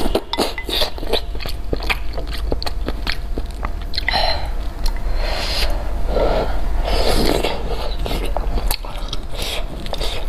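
Close-miked eating of noodles: slurping and wet chewing, with many small mouth clicks and a few longer slurps in the middle.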